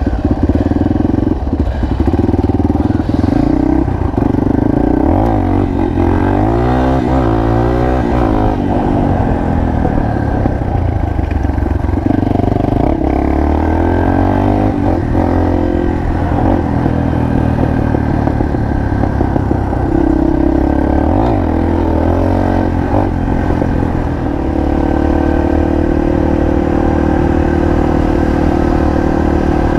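Single-cylinder four-stroke trail bike engine running under way, its pitch rising and falling as the throttle opens and closes, then holding steady near the end.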